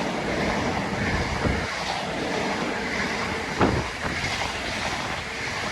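A Royal Mail train of Class 325 units hauled by a Class 90 electric locomotive passing through at speed: a steady rumble of wheels on rail, with a single sharp knock about three and a half seconds in.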